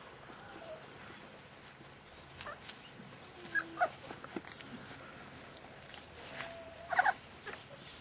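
Five-week-old Staffordshire Bull Terrier puppies giving short, squeaky yips and whines, loudest in a cluster about seven seconds in, with scattered small clicks and knocks between them.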